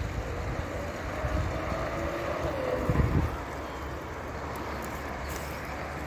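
Wind rumbling on a phone microphone, gusting louder about three seconds in, with a faint distant engine hum that drifts up and down in pitch.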